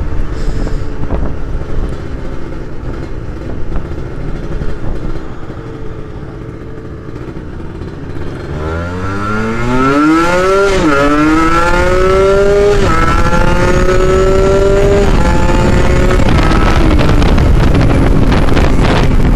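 Kawasaki Ninja 150 RR's two-stroke single-cylinder engine, heard from a camera on the bike with wind noise. It cruises steadily at first, then a little before halfway revs up hard through the gears, its pitch climbing and dropping back at each of several upshifts.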